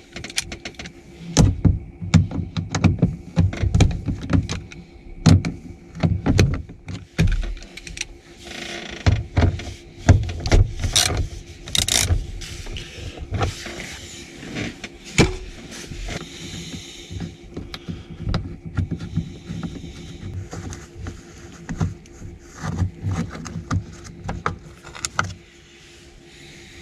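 Irregular plastic clicks, knocks and rattles of a VW T4 door's mirror-switch connectors and plastic bracket being pushed and worked loose by hand, with rustling handling noise in between.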